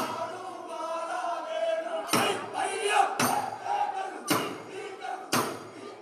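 A group of men singing a vanchipattu (Kerala boat song) in chorus, with a loud unison hand clap about once a second.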